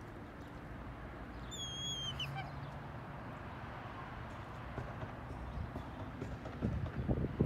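Outdoor backyard ambience with a steady breezy hiss, and a single wavy, falling whistled bird call about one and a half seconds in. Near the end, irregular low bumps buffet the microphone.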